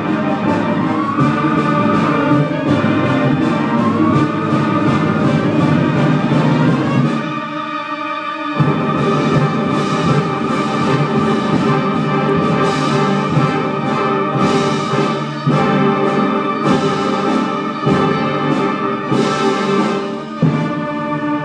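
Student concert band playing a wind-band piece: flutes, clarinets, saxophones and brass with timpani and percussion. About seven seconds in, the low instruments drop out briefly, then the full band comes back in with repeated percussion accents.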